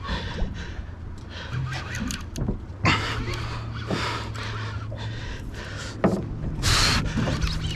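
Panga's outboard motor idling with a low steady hum, with a few short rushes of hiss over it, the loudest about two-thirds of the way through.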